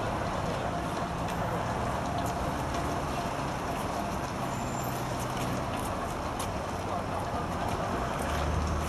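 Steady street traffic noise with a low engine hum, and a few faint clicks.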